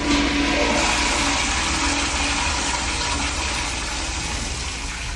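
Kohler commercial toilet flushing: a rush of water that starts abruptly, tapers slowly over about five seconds and stops near the end.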